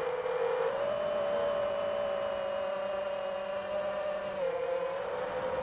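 Brushless motors and propellers of a 5-inch Armattan Marmotte FPV quadcopter whining steadily, recorded onboard. The pitch rises a little under a second in, drops for about a second near the end, then climbs again as the throttle changes.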